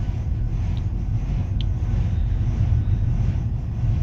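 Tram running along its tracks: a steady low rumble of wheels and running gear, with two short high squeaks in the first two seconds.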